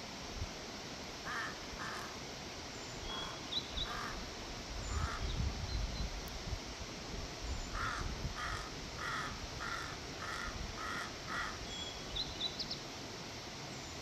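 Crow cawing: a few scattered caws, then a run of about seven evenly spaced caws a little over half a second apart.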